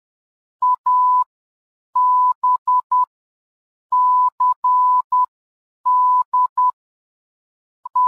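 Morse code beeps on one steady pitch, keyed in short and long tones: dit-dah (A), dah-dit-dit-dit (B), dah-dit-dah-dit (C), dah-dit-dit (D), each letter about a second apart, then a single short dit (E) at the very end.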